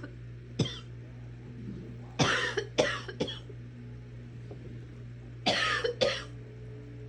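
A person coughing in short fits: a single cough about half a second in, a run of three quick coughs around two to three seconds in, and two more near the end.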